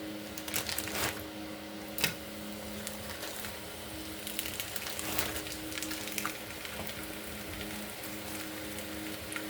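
Tortillas frying in a hot frying pan: a steady sizzle and crackle of oil, with a few sharp clicks of a utensil against the pan in the first couple of seconds.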